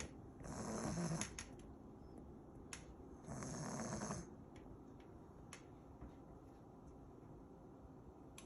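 A pug snoring in its sleep: two snores about three seconds apart, each lasting about a second, with quiet breathing between.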